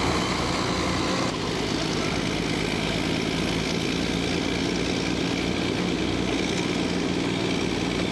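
Bulldozers' diesel engines running steadily under load as they push a huge concrete slab.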